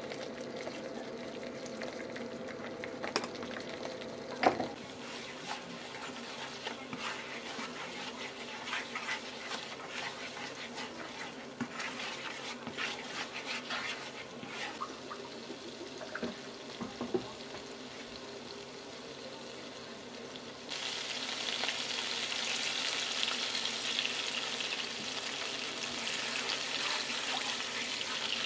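Chilli paste frying in oil in a nonstick frying pan, sizzling while a slotted spatula scrapes and taps against the pan as it is stirred. About 20 seconds in the sizzle suddenly grows louder and brighter and stays that way.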